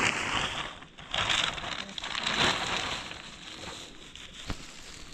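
Dry crunching and crackling noise in several bursts, loudest about a second in and again around two and a half seconds in.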